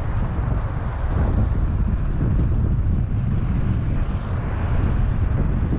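Wind buffeting the microphone at the shore: a steady low rumble.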